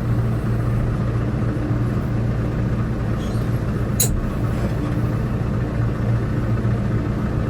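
Tractor engine running steadily, with one sharp click about four seconds in.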